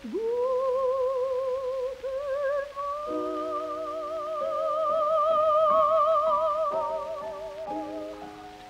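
Soprano singing a German art song with piano accompaniment, in a 1937 recording. She scoops up into a note with wide vibrato, then climbs to a long held higher note that swells and fades, while the piano plays sustained chords beneath from about three seconds in.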